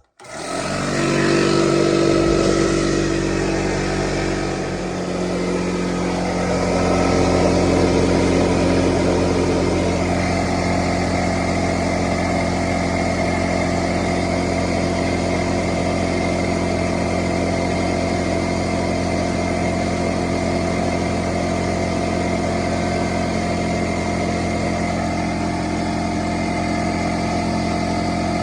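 DeWalt DWFP55126 pancake air compressor starting up loud and filling its empty tank for the first time; the motor and pump sound shifts over the first five seconds, then runs steadily.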